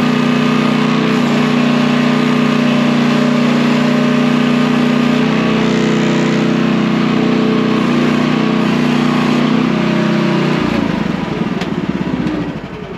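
Small engine of a mini excavator running steadily, then shut off about eleven seconds in, stuttering as it runs down.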